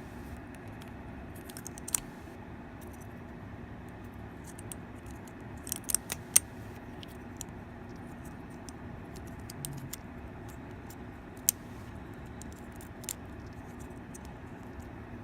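Scattered small clicks and snaps of a circuit board and connector being handled while rubber bands are stretched around them, loudest in a quick cluster about six seconds in, over a steady low room hum.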